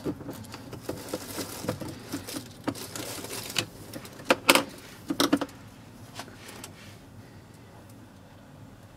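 Plastic screw-top lid being twisted off a jar of varnish and the jar handled: a run of small clicks and scrapes, with a few sharper knocks about three and a half to five and a half seconds in.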